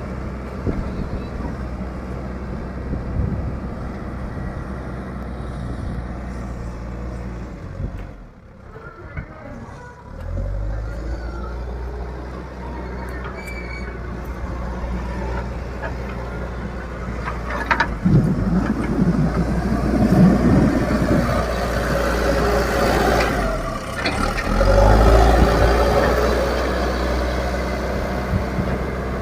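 Old Leyland Deere 435 backhoe loader's diesel engine running steadily. It drops away for about two seconds a quarter of the way in, then picks up again, with louder spells of heavier running in the second half.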